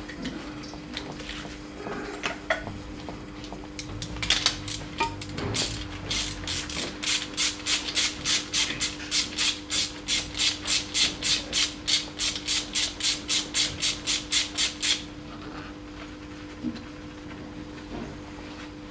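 Ratchet wrench clicking in quick short back-and-forth strokes, about three a second, for roughly ten seconds from about four seconds in, as a fitting on a diesel engine's cylinder head is turned. A faint steady hum runs underneath.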